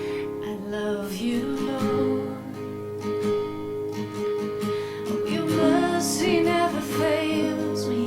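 Worship band music with strummed acoustic guitar over long held notes, an instrumental passage without words.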